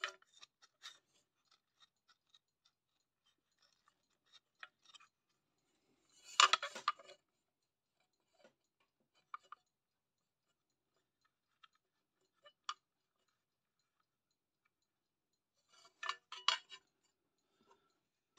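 Scattered small clicks and scrapes of hands and a tool working on a Unitra Zatra power supply's metal case, with a louder brief clatter about six seconds in and another near the end.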